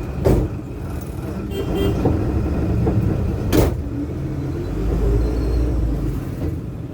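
Minibus heard from inside the cabin while driving: a steady low engine and road rumble, with two sharp knocks, about a third of a second in and about three and a half seconds in. The sound fades near the end.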